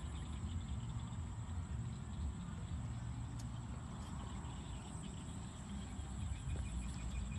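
Wind buffeting the microphone, with insects chirping throughout: a thin, steady high trill over faint rapid chirps.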